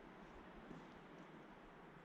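Near silence: faint steady background hiss with a few very faint light ticks.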